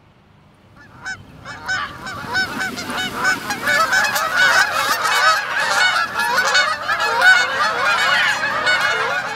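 A flock of Canada geese honking. The calls start about a second in and build into a dense chorus of overlapping honks as the flock is flushed and takes flight.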